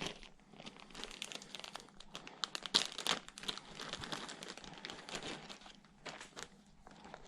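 Packaging crinkling and rustling as it is opened and handled by hand: a dense run of small crackles that thins out near the end.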